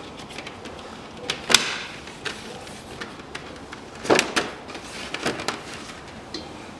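Crackling and clicking as the sealed packaging of a new CVT oil pan gasket is handled and opened: scattered sharp crackles, the loudest about one and a half seconds in, a quick cluster around four seconds and a few more just after five.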